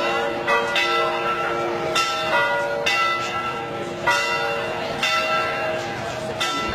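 Church bells ringing, several bells struck one after another at uneven intervals, each stroke ringing on and overlapping the next.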